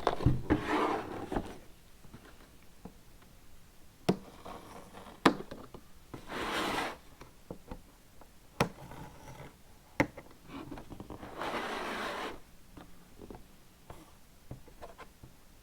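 A cardboard puzzle box being worked open by hand: three spells of rubbing and scraping of cardboard, with sharp taps and clicks in between.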